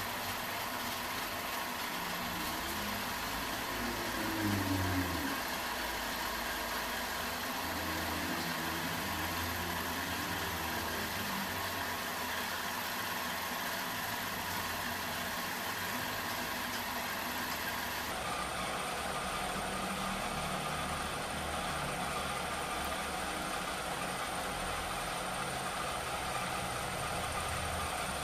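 Metal lathe running, turning an aluminium Kawasaki Ninja R cylinder head while a carbide tool cuts its combustion dome. It is a steady machine hum with a faint high whine, and the pitch drops slightly about two-thirds of the way through.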